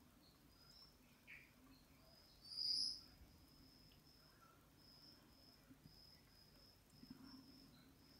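Black field cricket chirping: one loud chirp about two and a half seconds in, with fainter chirps at the same high pitch repeating through the rest.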